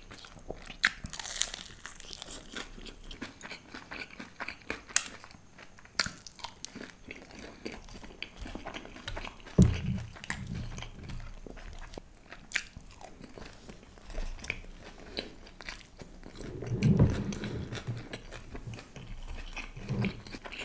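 Close-up crunching and chewing of crisp deep-fried snacks, with sharp crackles as the fried coating is bitten. Two louder dull thumps come about ten seconds in and again a few seconds before the end.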